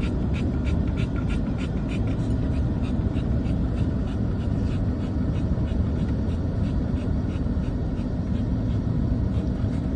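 Steady low rumble of a vehicle running, with a fast run of light scratchy clicks, about three a second, over the first few seconds that then fade out.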